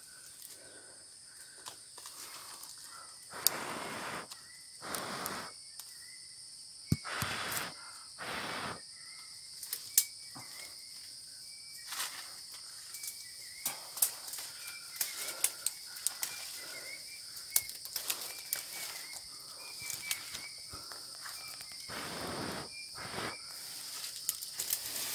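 Steady high-pitched drone of forest insects, with several short rustles of leaves and branches and scattered sharp twig snaps as someone moves through the tree.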